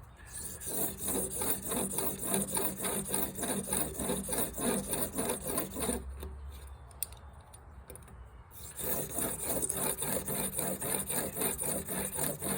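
Steel broadhead blade held in a Blade Sled jig, rubbed back and forth over a 1000-grit sharpening stone at the finishing stage. It comes as two runs of quick, even strokes with a pause of about two and a half seconds in the middle.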